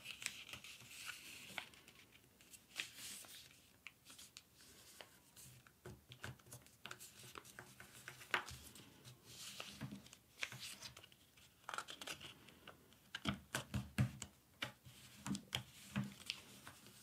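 A sheet of letter-size paper being folded and creased by hand: rustling and crinkling that comes and goes, with a few soft taps in the later part.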